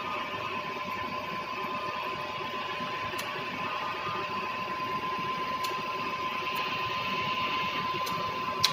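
Tool room milling machine running with a steady whine over a mechanical hum, with a few light clicks and one sharp click near the end.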